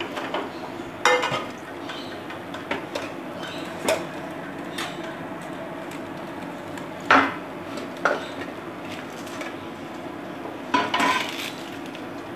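Cookware being handled: a pan and steel bowls and plates knock and clink against each other about six times, the loudest knock about seven seconds in and a quick cluster near the end, over a steady low hum.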